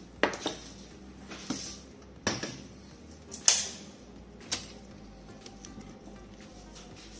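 A stainless steel saucepan set down on a wooden cutting board, then several more sharp knocks and clinks of kitchen things, the loudest about three and a half seconds in.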